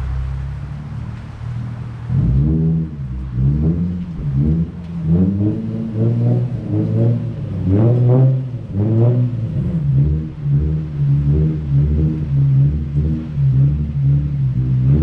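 Nissan 350Z's 3.5-litre V6 held at a steady drone, then from about two seconds in revved over and over, its pitch rising and falling about once a second and more quickly toward the end.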